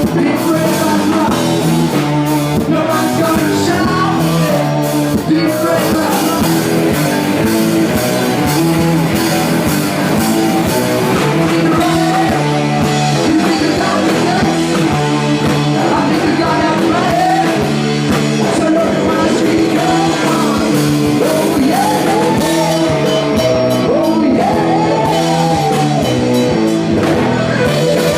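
Rock music with a band's guitars and drum kit and a singing voice.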